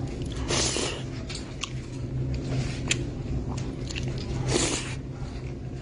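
A person chewing and eating food close to the microphone, with small clicks and two louder noisy bursts, one about half a second in and one near the end.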